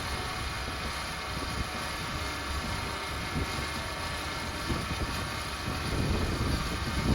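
TimberKing 1400 portable band sawmill running steadily, its engine driving the band blade through a soft maple log.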